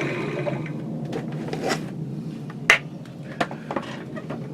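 Wood lathe running on with a steady hum just after a turning cut stops, with scattered light clicks and knocks, the sharpest about two and a half seconds in.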